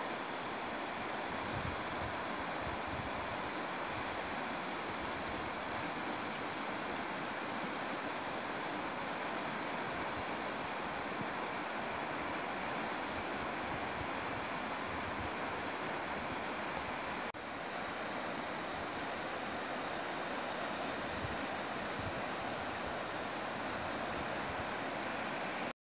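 Steady rush of a river's flowing water, an even hiss with no breaks.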